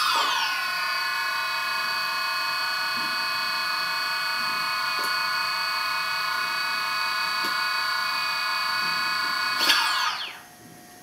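DJI Phantom 2 quadcopter's brushless motors spinning with no propellers fitted: a steady high whine of several tones, falling in pitch just at the start. About ten seconds in the pitch briefly rises, then sweeps down as the motors spin down and stop.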